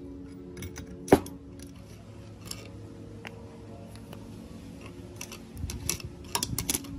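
Steel open-end wrench clinking sharply once against the pulley's hex nut about a second in. Near the end comes a run of smaller metal clinks and taps as a tool works grease into the gearbox housing.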